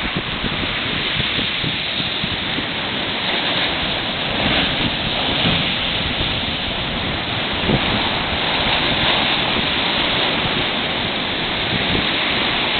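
Sea surf washing steadily on the shore, with wind buffeting the microphone; the rush of the waves swells a few times.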